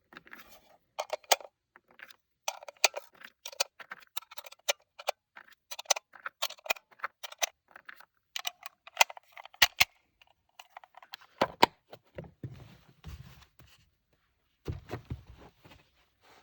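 Rifle cartridges pressed one by one into a box magazine: a quick run of sharp metallic clicks and clinks for about ten seconds, followed by a few dull knocks of handling.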